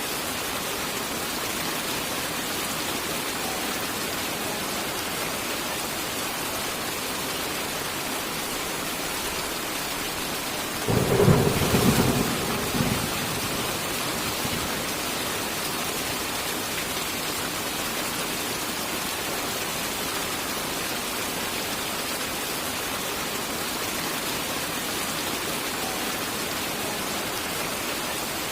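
Steady heavy rain, with one thunderclap about eleven seconds in: a sudden loud crack that rumbles for two or three seconds and fades.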